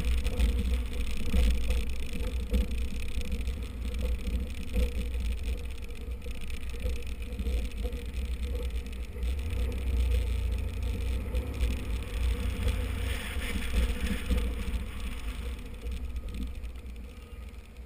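Car engine running at low speed with tyre noise on a dirt surface; it grows quieter near the end as the car slows.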